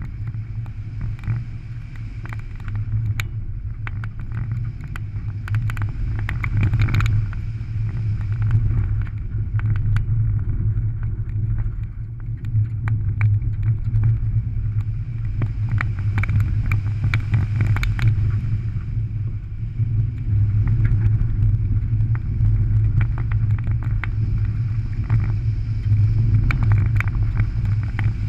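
A rallycross car's engine running hard on a dirt course, its loudness rising and falling with the throttle, with many sharp clicks of gravel and stones striking the car.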